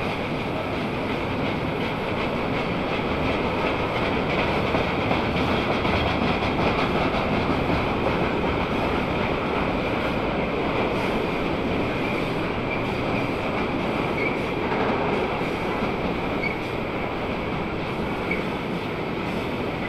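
Freight train of bogie tank wagons rolling past: a steady rumble and rattle of wheels over the rails, with a thin high wheel squeal running under it.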